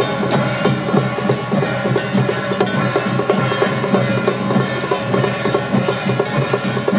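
Loud, continuous temple-festival percussion music: fast, even drum strikes with sharp clacks and ringing metal tones.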